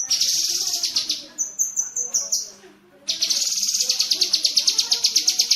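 Cucak kinoy singing its rapid chattering 'tembakan' phrases. A dense high rattle comes first, then a few short high notes and a brief pause. From about three seconds in there is a long, fast, evenly pulsed trill.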